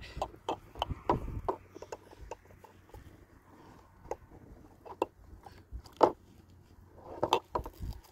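A child's hands splashing and rinsing a small item in a plastic basin of water, with scattered small splashes, drips and knocks against the tub.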